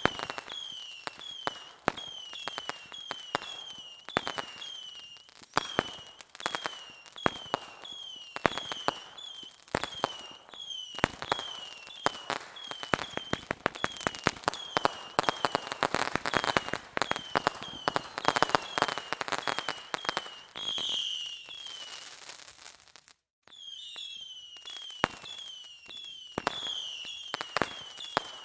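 Fireworks going off: a rapid string of sharp bangs and crackles, densest in the middle, with a short high falling chirp repeating about twice a second behind them. The sound cuts out briefly about 23 seconds in.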